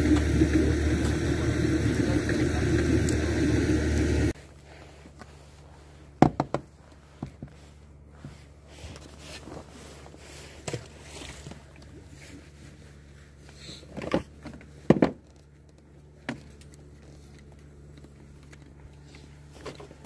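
A boat's outboard motor running steadily, cutting off suddenly about four seconds in. After that only a faint low hum, with scattered knocks and clunks of gear being handled in the boat.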